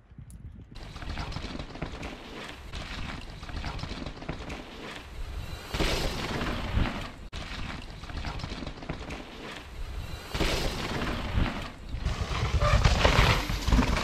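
Downhill mountain bikes riding over dirt and rock: a continuous rattling, crunching noise of tyres and bikes on the rough track, with surges as riders pass close, the loudest near the end.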